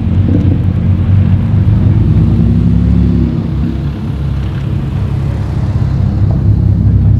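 Lamborghini Huracan's V10 engine running at low revs as the car rolls slowly, with a brief rise and fall in revs about two to three seconds in.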